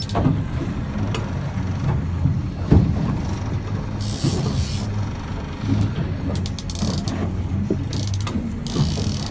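A boat's motor running at low speed with a steady low hum, with scattered knocks and rattles, including short runs of rapid clicking.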